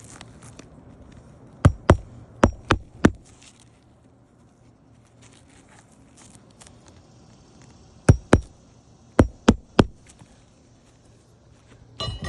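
Hammer driving roofing nails into a shingle: a run of five sharp strikes about two seconds in, and another run of five from about eight to ten seconds in.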